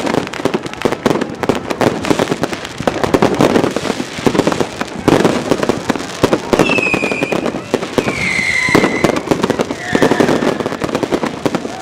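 A dense, unbroken barrage of New Year's fireworks and firecrackers: rapid overlapping bangs and crackling, with a couple of high whistling tones around the middle.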